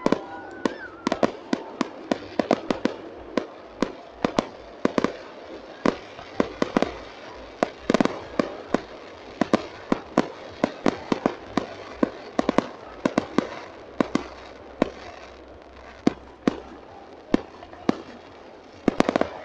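Fireworks display: aerial shells bursting in rapid, irregular succession, often two to four bangs a second.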